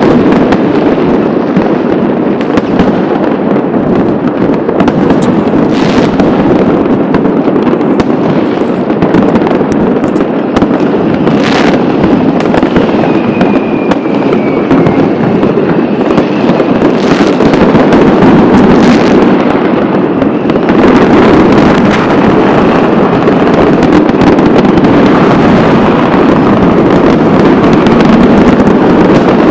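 Dense, unbroken barrage of fireworks and firecrackers going off all around, with many sharp bangs standing out from the crackle. A falling whistle is heard about thirteen seconds in.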